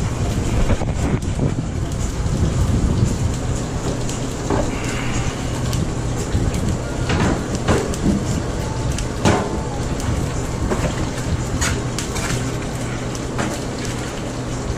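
Wood fire in a brick pizza oven crackling, with irregular small pops and snaps over a steady low machine hum.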